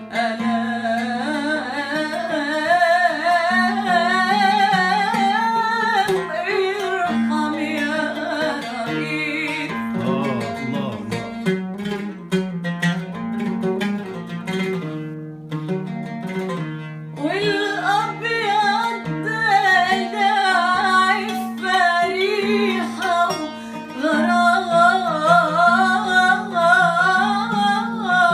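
Background music: a song with a solo voice singing a wavering, ornamented melody over plucked-string accompaniment. About ten seconds in the voice drops out for a quick plucked-string passage, and the singing comes back at around seventeen seconds.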